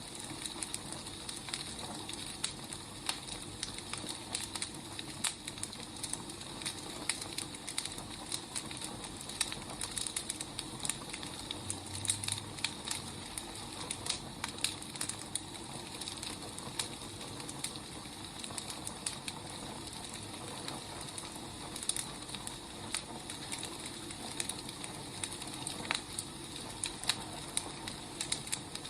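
Wood fire crackling: frequent small, irregular pops and snaps over a soft, steady hiss.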